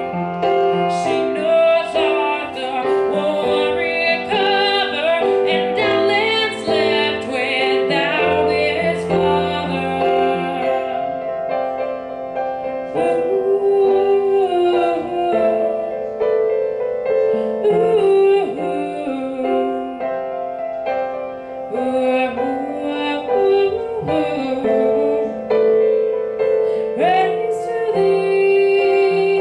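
Upright piano playing a ballad, with a young woman's voice singing over it at times.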